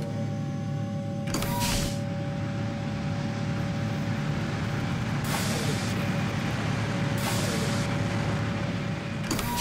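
Sound effect of an airliner's landing roll: a steady rumbling roar with a constant hum underneath, broken by four short hisses.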